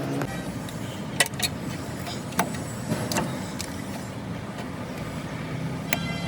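A car running steadily, with several short, sharp metallic clicks and knocks over it.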